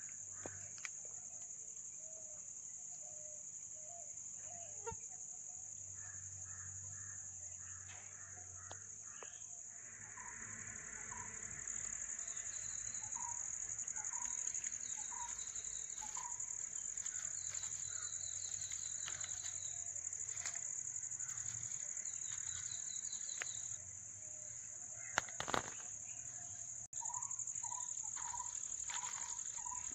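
Steady high-pitched insect drone, with birds calling in repeated short notes. A couple of sharp clicks near the end.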